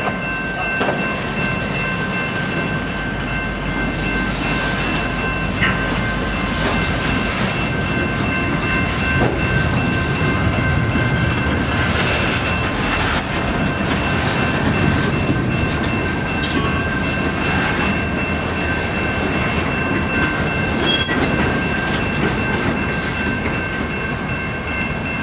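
Freight train cars rolling past at close range: a steady rumble of wheels on rail, with irregular clacks as the wheels cross the rail joints and a faint steady high-pitched ring above it.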